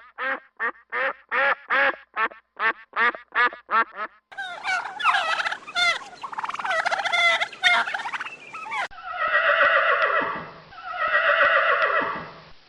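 Domestic poultry calling in a series of clips. First come quick repeated calls at about three a second, then a busy chorus of many birds calling over one another, then two long calls that fall in pitch.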